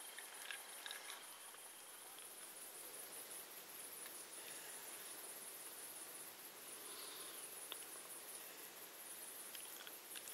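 Crickets chirping in a rapid, regular high-pitched pulse, over a faint steady hiss with a few small ticks.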